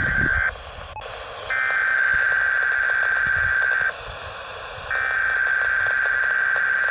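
Weather radio SAME alert header: data bursts of a shrill two-tone warble on a weather radio broadcast, each about two and a half seconds long with a second of radio hiss between them. One burst ends about half a second in, a full one follows, and the third begins about five seconds in. These bursts encode the start of a Required Weekly Test.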